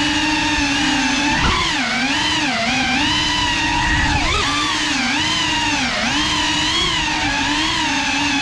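GEPRC FPV quadcopter's brushless motors and propellers whining, the pitch dipping and rising over and over as the throttle changes. A brief knock about one and a half seconds in.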